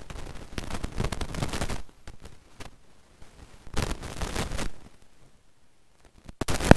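Rustling, clicking and knocking handling noise as a motorcycle's airbox is wrestled with by hand, coming in uneven bursts of a second or two, with a sharper clatter near the end.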